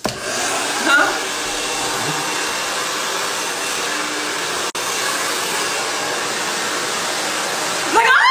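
Handheld hair dryer blowing steadily at close range, with a momentary break just past halfway. Near the end a woman cries out loudly over it.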